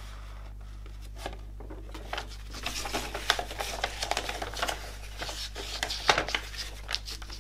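Folded paper CD booklet being opened out and handled: crisp paper crackles and rustles, beginning about two seconds in and going on in quick irregular runs, over a steady low hum.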